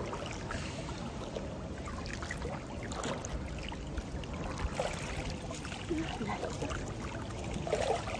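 Swimming-pool water splashing and trickling, a steady wash of water with small splashes throughout.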